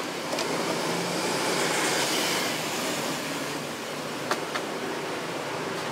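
A steady rushing background noise, swelling a little about two seconds in. A few light clicks as wire connectors are pushed onto the sockets of the amplifier's circuit board, two of them close together near the end.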